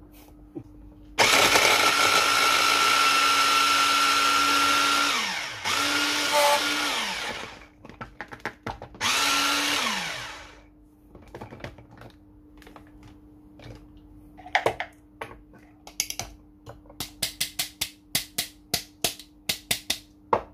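Stick blender's chopper attachment running, chopping red onions: one run of about four seconds, then two short pulses, the motor pitch falling each time it is released. Near the end, a quick series of light clicks and taps as the chopper is taken apart.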